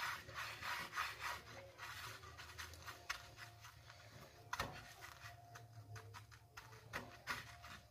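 Faint scraping and rustling of a hand rolling a kabab in dry breadcrumbs on a plate, in irregular strokes, with a sharper scrape about four and a half seconds in.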